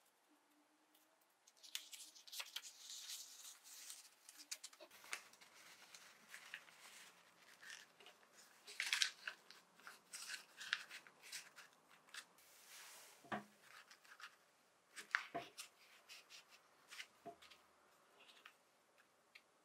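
Paper coffee filter being creased, opened and pressed into a dripper by hand: crisp, irregular paper crinkling and rustling, with a couple of soft knocks about two-thirds of the way through.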